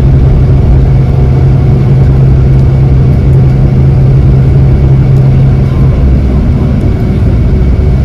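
Steady running noise heard from inside a moving vehicle: a low rumble with a steady low hum that stops about six seconds in.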